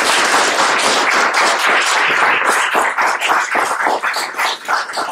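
Audience applauding: dense, loud clapping that thins to scattered claps near the end.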